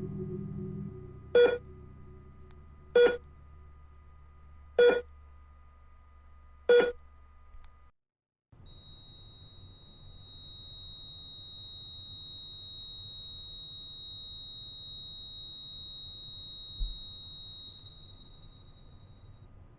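Electronic beeps, five short pitched tones spaced a little under two seconds apart over a fading low hum, then after a brief silence one long steady high-pitched tone that holds for about ten seconds before fading.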